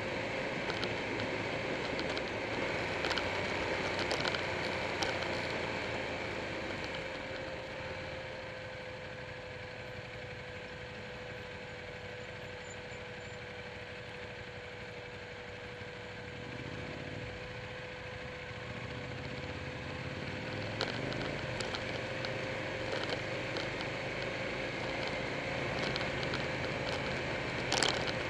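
Buell 1125R V-twin motorcycle running at town speed, heard through a bike-mounted camera together with wind and road noise. It goes quieter for a stretch in the middle, then picks up again, with a few sharp ticks near the end.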